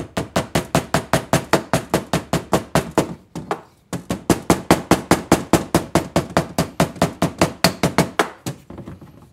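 Ball-peen hammer tapping gasket material against the cylinder flange of an antique Maytag upright engine, cutting out a head gasket. The taps come fast and light, about four or five a second, with a short pause a little past three seconds in, and grow lighter near the end.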